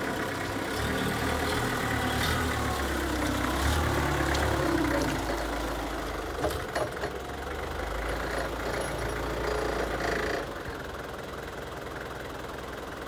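Diesel engine of a 1980 Mitsubishi FD25 forklift running as the truck drives and turns, its pitch rising and falling with the throttle, with a couple of clunks a little past the middle. About ten seconds in it drops to a quieter idle as the truck stops.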